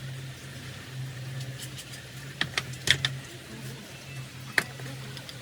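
A steady low hum, with a quick cluster of sharp clicks about two and a half seconds in and one more sharp click near the end.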